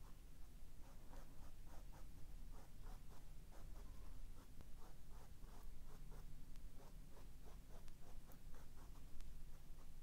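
Quick short strokes of a small paintbrush on canvas, a few soft brushing strokes each second as fine strands of acrylic paint are laid on, over a low steady room hum.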